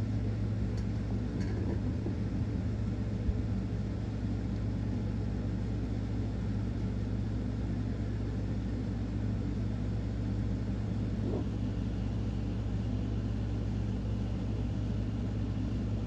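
A steady low mechanical hum with an even rumble under it, unchanging, with a couple of faint short sounds over it.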